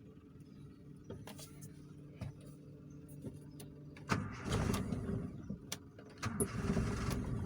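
Cold Honda Civic four-cylinder engine being started just after a spark plug change. After a few quiet clicks, the starter cranks about four seconds in, pauses briefly, then cranks again and the engine catches and runs. It is slow to fire because the engine is very cold and fuel takes time to come through.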